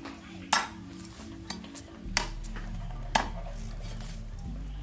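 A cleaver chopping a raw pig's trotter on a wooden stump chopping block: three sharp chops about a second apart.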